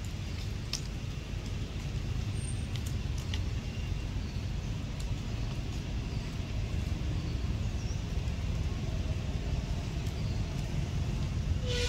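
Outdoor background: a steady low rumble with scattered faint clicks, and a short pitched call right at the end.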